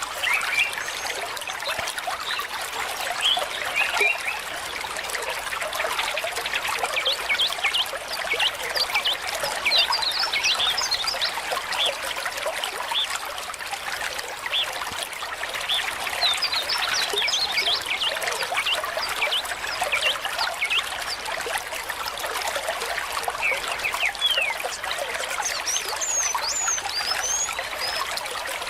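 Water trickling steadily, with small birds chirping throughout in quick, short calls that come in busy clusters several times.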